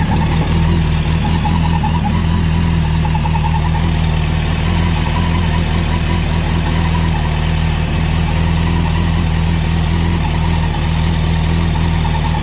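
Kawasaki ZX-6R inline-four motorcycle engine idling steadily.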